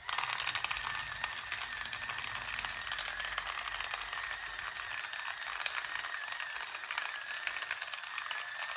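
Rechargeable electric salt grinder's small motor running on its 10-second setting, a steady whine over the dense crackle of pink salt crystals being ground.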